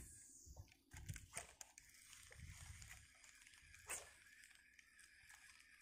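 Near silence, with a few faint scattered clicks and knocks.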